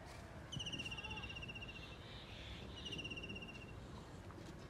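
Two high, rapid trills from a small animal, the first about a second and a half long and the second about a second, with a short gap between them, over faint steady background noise.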